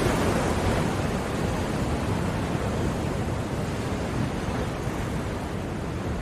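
Ocean surf: a steady rush of waves washing on the shore that slowly eases in loudness.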